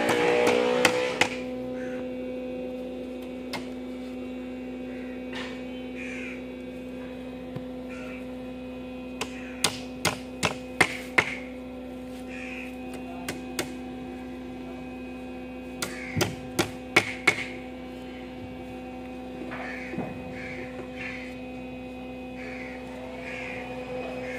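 Crows cawing now and then over a steady hum, with two quick runs of sharp clicks partway through. Background music dies away within the first second.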